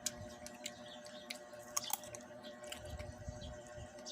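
A person chewing a piece of mango dipped in ketchup close to the microphone: soft, wet mouth sounds and irregular little clicks and smacks.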